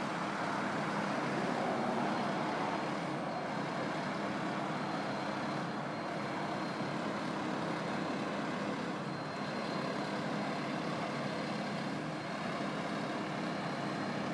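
Fire ladder truck's diesel engine idling steadily with an even drone.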